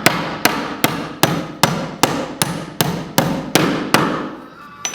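Hammer driving a nail into wooden trim: a steady run of about ten sharp strikes, roughly three a second, stopping near the end.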